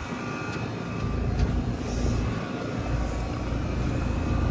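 Trane XL14i heat pump outdoor unit running steadily, a compressor hum and condenser fan with a few steady tones. Wind rumbles on the microphone from about a second in.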